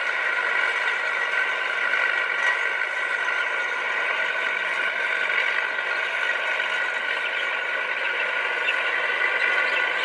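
Diesel engine of a Komatsu bulldozer running steadily, with a high whining tone over it.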